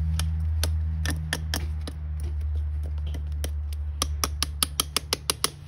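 Metal pliers tapping and scraping at a fresh exothermic weld on a copper ground rod and cable, knocking off slag: a string of sharp clicks that comes quicker near the end, over a steady low hum.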